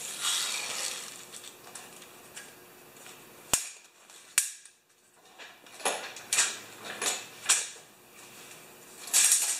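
Recoil starter rope on a Craftsman snowblower being pulled out by hand and let wind back in, with the engine not running. Rasping rope noise, two sharp clicks about a second apart midway, then four short rasps. The new rope is too long and does not retract all the way.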